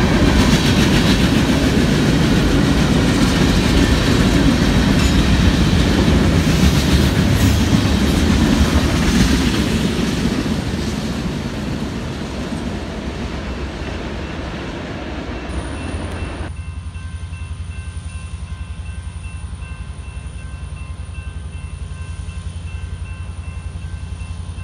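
Freight train of covered hopper cars rolling past close by, a heavy rumble with wheels clattering over the rail joints. The sound fades after about ten seconds and cuts off abruptly about sixteen seconds in, leaving a quieter steady hum with a faint high whine.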